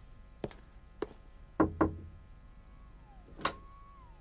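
Footsteps on a hard floor, then two quick knocks on a door about one and a half seconds in, and another sharp knock near the end.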